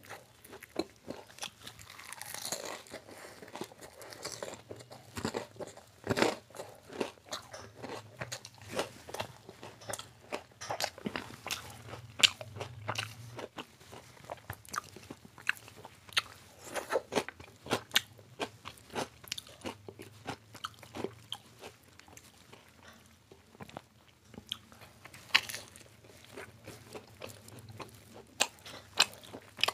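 A person biting into and chewing crisp fried street food close to the microphone: runs of crunches with short quieter gaps between mouthfuls.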